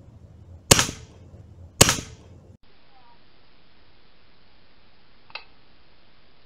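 Two sharp cracks of a BB gun shooting at a glass panel, about a second apart. Then a steady faint hiss with one small click.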